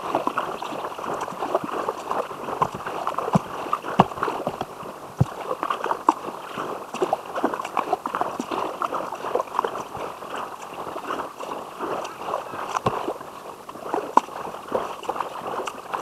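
Water splashing and dripping around a kayak being paddled on a river: a steady patter of small plops and splashes against the hull.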